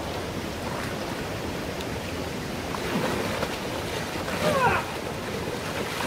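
Steady rush of a shallow stream flowing over rocks, with water splashing as it is scooped with a container and thrown about by hand.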